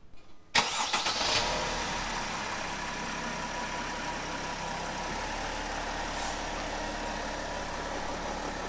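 Mercedes Sprinter 4x4 van's engine starting about half a second in, then idling steadily.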